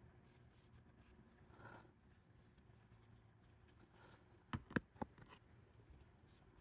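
Near silence, broken a little past halfway by three sharp metallic clicks in quick succession from steel hand tools being handled on a workbench.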